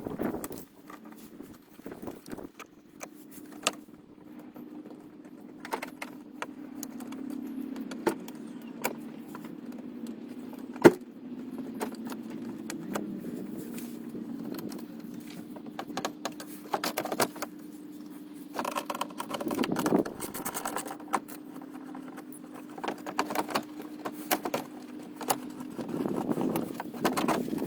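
Small clicks, scrapes and light rattles of a pick working plastic retaining clips out of a Ford Mondeo Mk4's lower splash guard, with one louder snap midway. A steady low hum runs underneath.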